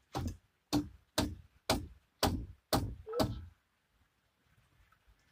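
A steady series of about eight heavy thuds, roughly two a second, stopping about three and a half seconds in.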